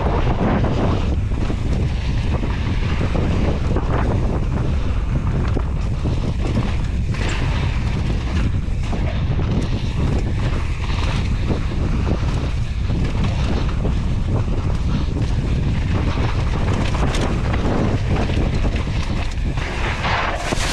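Wind buffeting the microphone of an action camera during a fast mountain-bike descent, a steady heavy rumble, with the tyres rolling over a dirt trail and frequent short knocks and rattles from bumps.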